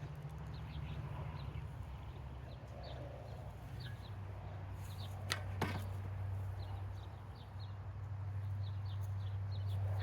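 Low wind rumble on the microphone, with a small bird chirping repeatedly in short high notes, and two sharp knocks close together about five and a half seconds in.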